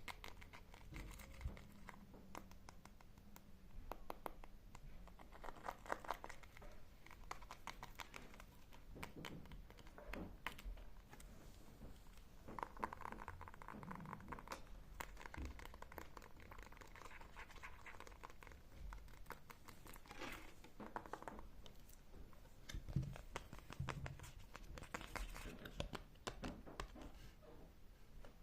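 Close-miked ASMR trigger sounds: soft scratching and crinkling with many quick, irregular taps and clicks.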